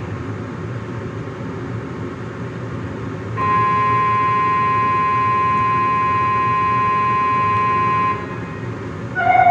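Low steady hum of a subway train waiting at the platform, then a steady electronic warning tone sounds for about five seconds and cuts off, signalling the doors are about to close before departure. A second, lower steady tone begins near the end.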